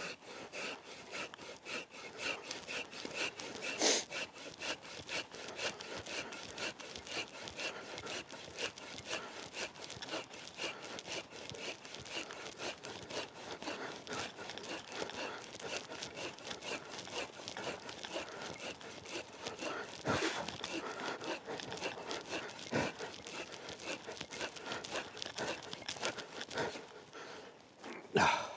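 Silky Big Boy Outback folding saw cutting into a thick, well-seasoned downed alder log with quick, steady back-and-forth strokes. The sawing stops near the end, where the log begins pinching the blade.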